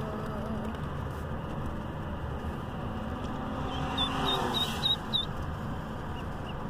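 Ducklings peeping in a box: a quick run of about five short high peeps around four to five seconds in, over steady car road noise inside the cabin.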